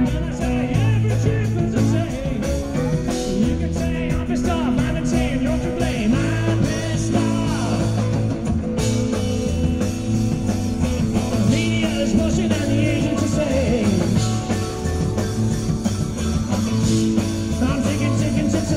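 Rock band playing live: steady bass notes and drums under gliding lead lines.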